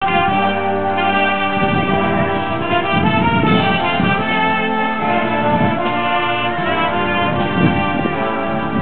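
Brass band playing a tune, with held chords that change every second or two.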